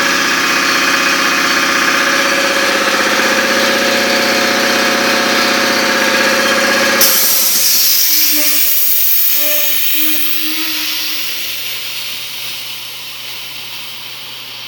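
A machine or motor running steadily, then a sudden change about seven seconds in to a hiss that fades away gradually.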